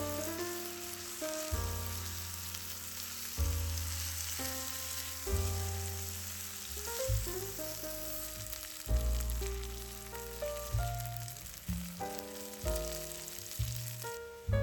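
Food sizzling as it fries in a skillet, a steady hiss, under background music with a bass line that changes note every second or two.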